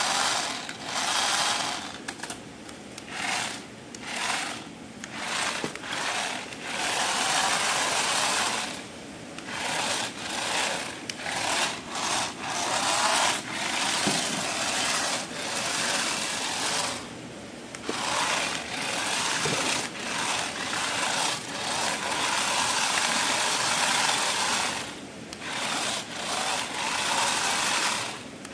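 Small electric motor of a remote-control toy whirring in bursts, starting and stopping over and over, some bursts short and some running several seconds.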